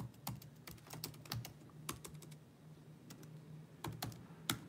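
Typing on a computer keyboard: irregular key clicks, quick and close together for about two seconds, then sparser, with one louder keystroke near the end.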